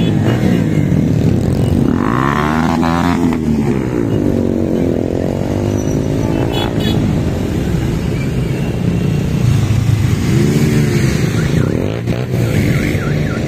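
A group of motorcycles riding past, their engines revving up and down in pitch again and again as each bike goes by.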